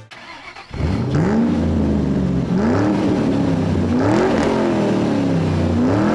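Honda Pioneer 700 side-by-side's engine running as the machine is driven, starting less than a second in; its pitch climbs and drops back again and again, about once every second or so.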